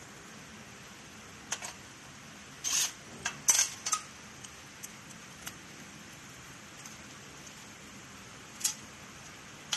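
Small metallic clicks and clinks as a screw on a screwdriver bit is handled against a sheet-metal frame, with a short cluster of rattles about three seconds in and a single clink near the end. No drill motor runs.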